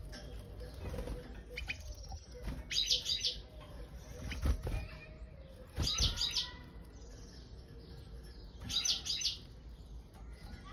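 European goldfinch chirping in short bursts of quick high notes, one burst about every three seconds, with a brief flutter of wings about six seconds in.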